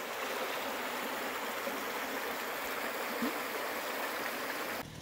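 Creek water running steadily over a shallow rocky ledge and riffle, an even rushing hiss that cuts off suddenly just before the end.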